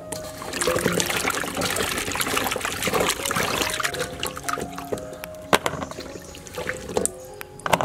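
Water splashing and trickling as peeled ginger roots are handled in a pot of water. Then wet pieces of ginger drop with a few sharp knocks into a plastic colander.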